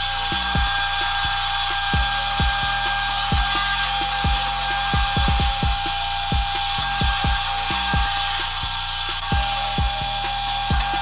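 Pillar drill press boring through a steel plate on square steel tubing, the bit flooded with cutting coolant: a steady whine with a hiss of cutting that starts and stops together.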